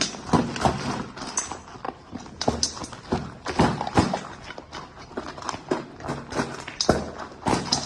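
Dog eating dry food from a bowl: a rapid, irregular run of crunches and clicks, several a second.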